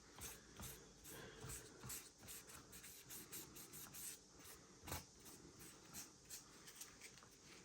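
Faint, irregular scratchy strokes of a wet sanding sponge rubbing over the painted body of a scale model car.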